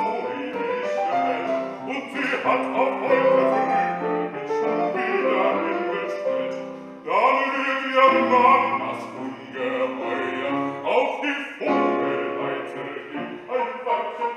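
A man singing in an operatic style with piano accompaniment, holding long notes with vibrato and sweeping up into a loud phrase about halfway through.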